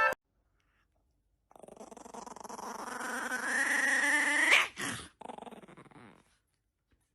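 A dog vocalizing: a long drawn-out sound that starts about a second and a half in and rises in pitch and loudness for about three seconds, then, after a brief break, a shorter, quieter one.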